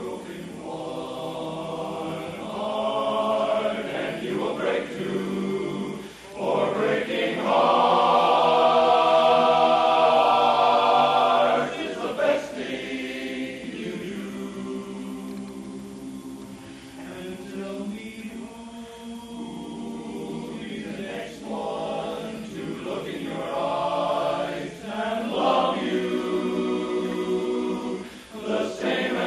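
Men's barbershop chorus singing a cappella in close four-part harmony, with a loud chord held for about four seconds near the middle.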